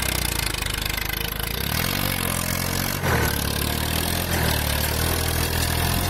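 Swaraj 744 FE tractor's three-cylinder diesel engine running while pulling a mouldboard plough, its engine speed rising about two seconds in.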